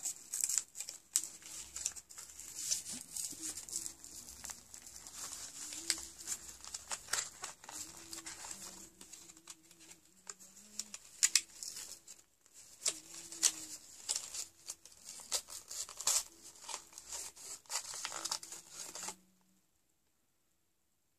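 Card-backed plastic product packaging being handled and torn open: irregular crackling, crinkling and short rips that stop abruptly near the end.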